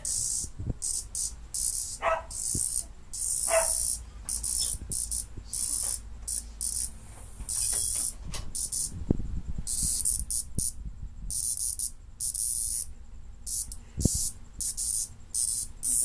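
A live cicada buzzing in short, irregular bursts, a distress buzz as it struggles to escape a cat. A few low thumps, the strongest about 14 seconds in.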